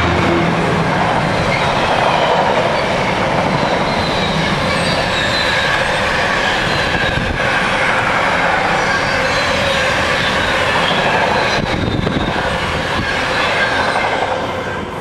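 Container wagons of a freight train rolling past close by: a loud, steady rumble and rattle of wheels on rail, with thin high squeals from the wheels. The last wagon goes by and the noise falls away near the end.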